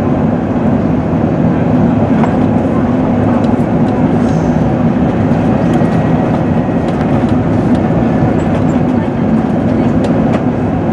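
Steady cabin drone inside a British Airways Airbus A380 on descent: the Rolls-Royce Trent turbofans and the rush of air past the fuselage, with a steady low hum under it.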